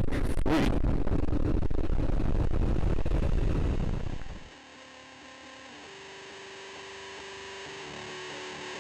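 Wind buffeting the microphone over the running motorcycle for about four seconds, then a sudden cut to distorted electric guitar music that fades in.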